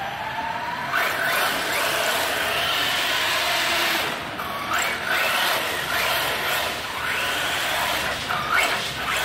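Electric motor of a Traxxas Slash 4x4 RC truck whining up and down in short bursts as it is throttled through slides, over the steady hiss of its tyres scrubbing on a concrete floor.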